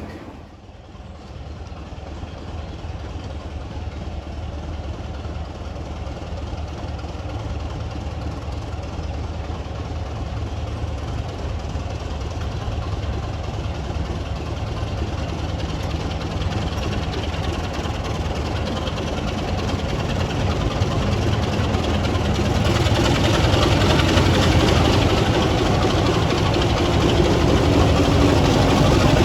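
Heritage diesel locomotive engine running with a steady deep drone, growing gradually louder and swelling further about three-quarters of the way through.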